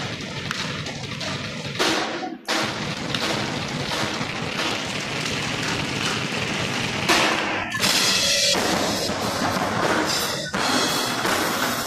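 Drum ensemble playing together on several drum kits, with bass drum and snare, stopping for an instant about two seconds in. There is a loud hit about seven seconds in, followed by strong bright cymbal-like hiss.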